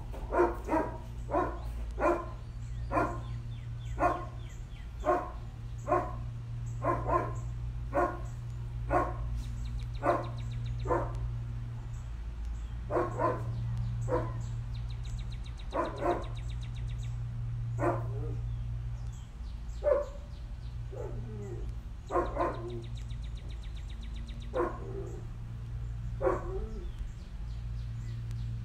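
A dog barking repeatedly, about once a second for the first ten seconds or so, then more sparsely, over a steady low hum. The barking is excited, as the dog waits to be let out.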